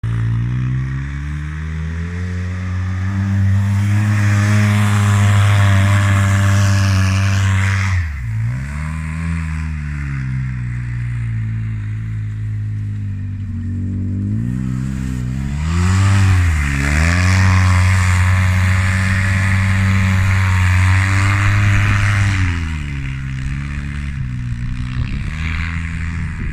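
Polaris RZR 800 side-by-side's engine held at high revs under load as it churns through snow, with a rushing noise over the engine note while the revs are up. The revs drop and climb back twice, about eight and sixteen seconds in.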